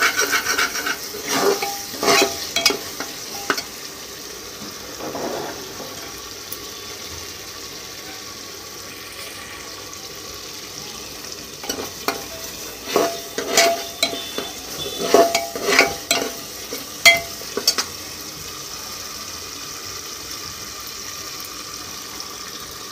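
Spice masala sizzling in oil in an aluminium pressure cooker, with a steel ladle scraping and clinking against the pot in two spells of stirring, at the start and again about halfway through. The masala is being fried on a low flame until the oil separates and rises to the top, the sign that it is nearly done.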